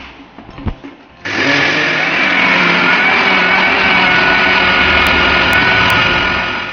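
Electric mixer grinder (mixie) grinding lentils and a chilli into a paste. After a short knock, the motor starts about a second in and runs with a steady high whine, then winds down near the end.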